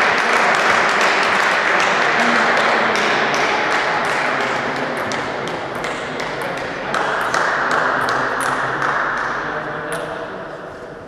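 Table tennis balls clicking, many light irregular clicks a few a second, over a steady hiss of background noise that slowly fades.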